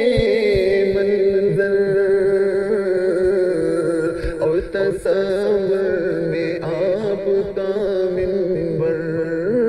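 Wordless singing for a salam melody: a voice holding long notes with a slow wavering pitch, with a short dip about halfway through.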